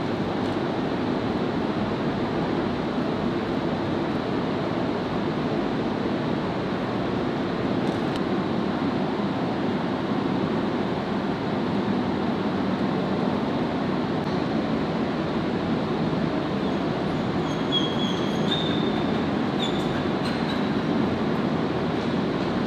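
A steady rushing noise with no clear pitch or rhythm. Around three quarters of the way through come a few short, high squeaks.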